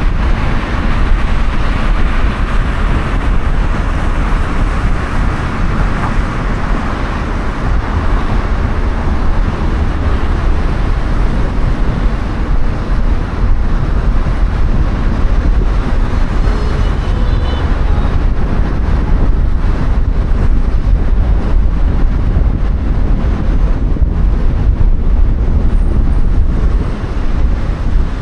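A car being driven on city roads: steady road and engine noise with surrounding traffic.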